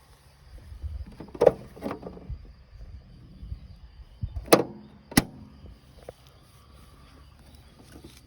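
Four sudden mechanical knocks: two heavier clunks around a second and a half in, then two sharp clacks near the middle, over a faint low rumble.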